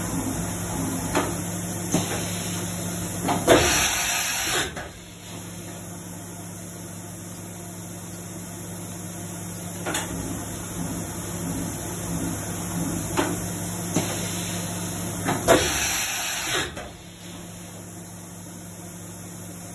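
Samsung MCV50 CNC vertical machining center running with a steady hum and scattered mechanical clicks. Twice, about twelve seconds apart, there is a loud hiss of compressed air lasting about a second, and the hum drops after each one.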